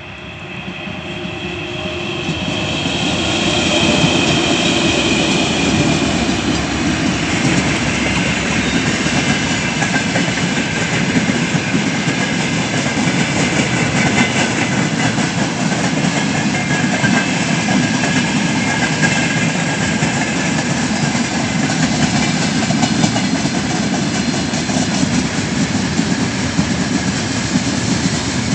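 Freight train hauled by a 3ES5K "Ermak" electric locomotive passing close by. The sound grows louder over the first few seconds as the train draws near, then settles into a steady rumble and clatter of loaded freight wagons rolling over the rail joints.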